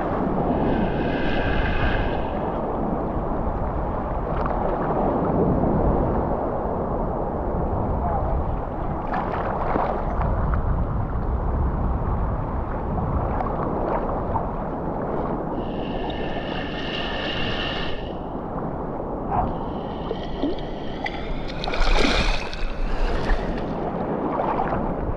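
Steady wash of ocean surf with wind rumbling on the microphone. Brief high-pitched calls, likely distant voices, come through about a second in and twice more in the second half.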